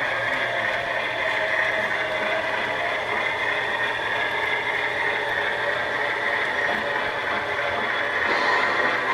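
Model Beyer Garratt locomotive running steadily along the track, its electric motor and gearing whirring and its wheels rolling on the rails with the freight cars behind, without a break or change in pace.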